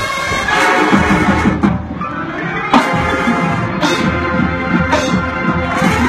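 High school marching band playing live: brass holding sustained chords, with several sharp percussion hits.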